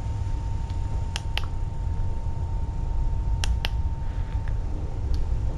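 Camera shutter clicking as photos are taken: two double clicks, then a single click near the end. A steady low hum runs underneath.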